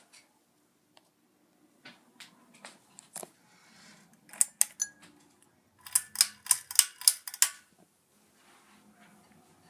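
Sharp mechanical clicks: a few single ones, two close together about four and a half seconds in, then a quick run of about eight in a second and a half, over a faint low hum.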